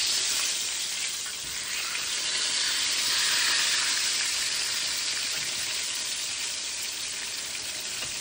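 Cornmeal-dredged swai fillets frying in hot oil: a steady sizzle with gentle swells in loudness.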